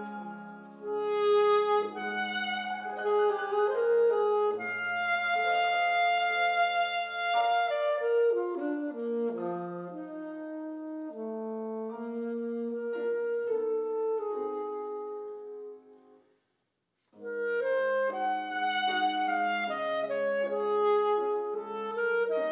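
Alto saxophone playing a classical solo with piano accompaniment, moving between held notes and quicker runs. It stops for a short silent pause about two-thirds of the way through, then the sax and piano resume.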